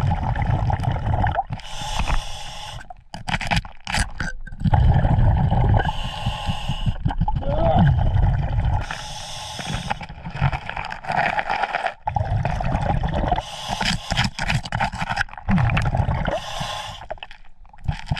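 Scuba diver breathing through a regulator underwater: a hissing inhale followed by a low rumble of exhaled bubbles, repeating every three to four seconds.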